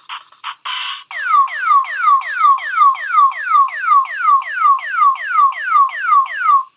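Bop It Extreme 2 keychain's small speaker playing an electronic sound effect: a few short blips, then a falling electronic tone repeated about three times a second for over five seconds.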